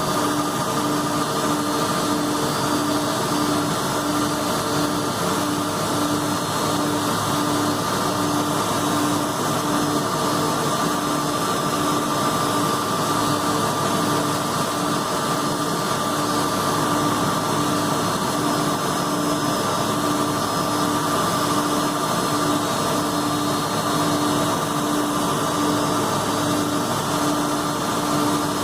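Jet engines of an Airbus A330-223 running steadily at low power, a constant whine over a roar with a faint regular pulsing.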